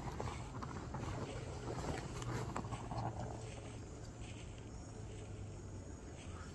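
Quiet outdoor ambience under a low steady hum, with scattered faint crackles and rustles.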